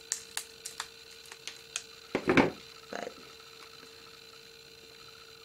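Small plastic drill pots and scissors handled on a tabletop: a run of light clicks over the first two seconds, then a louder clatter and a softer one, then only a faint steady hum.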